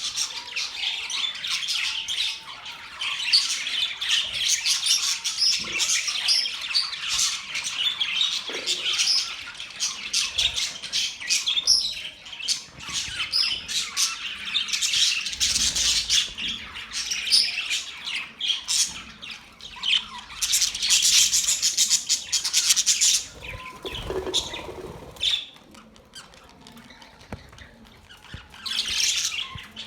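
Pet birds chirping in a dense, continuous chatter of rapid high calls, easing off for a few seconds near the end before one last burst.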